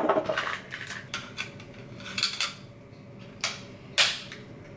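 Sharp metal clicks and clinks of a detachable blade being changed on Wahl dog-grooming clippers, a size 40 blade being fitted. The clicks come in a scattered series, loudest right at the start and again about four seconds in.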